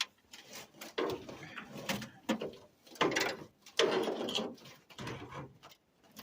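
Hand tools and metal car parts being worked: a string of irregular clanks, knocks and scraping, busiest about three to four seconds in.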